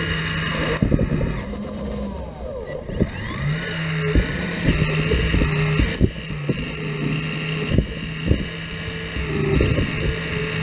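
Caterpillar 235 excavator at work: a steady engine drone with repeated short knocks and clanks. The engine note dips briefly about three seconds in and climbs back, as under a brief load.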